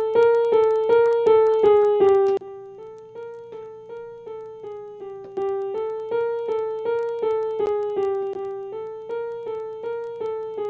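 Sampled grand piano from Reason's NN-XT sampler playing a one-bar loop of repeated notes on a few close pitches, about three a second. A louder phrase is followed by a softer one, and the loop comes round twice.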